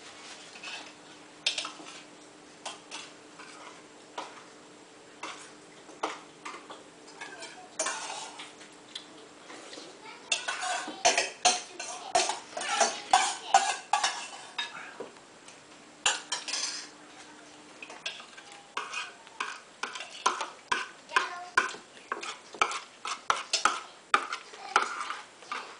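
Spoons and cutlery clinking and scraping against bowls and plates during a meal and while food is served. The clinks are scattered at first and come thick and fast about halfway through and again near the end.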